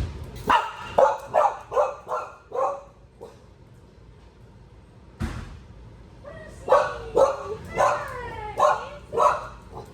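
Dog barking in two runs of quick barks, about six and then about seven, with a pause between them broken by a single thump.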